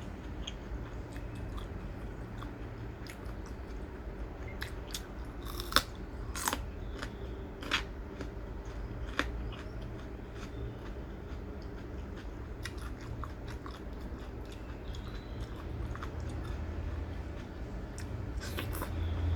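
A person chewing and biting crunchy food close to the microphone. Irregular crunches run throughout, the sharpest few coming about six to nine seconds in.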